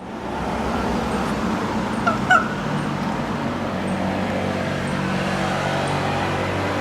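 Common raven giving two short, quick squawks about two seconds in. Underneath is a steady low engine hum.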